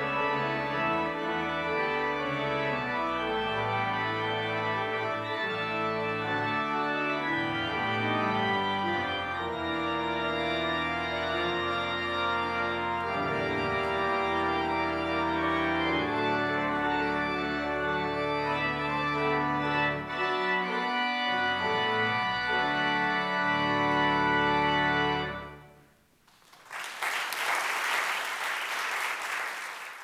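Two-manual church organ playing a piece in held chords, which ends about 25 seconds in. Applause follows for a few seconds.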